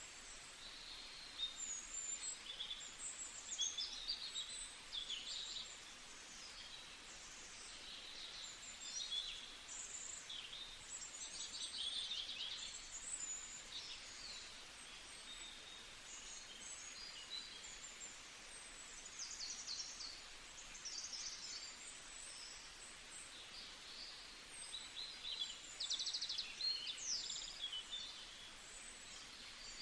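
Several small birds singing together in overlapping chirps, trills and short warbling phrases, over a faint steady hiss.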